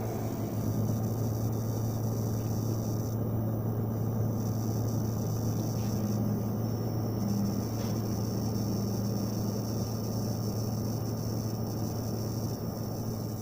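Computer power supply unit (PSU) buzzing steadily with a low mains hum and a crackling, sizzling noise over it, a strange sound the owner likens to a short circuit inside the PSU.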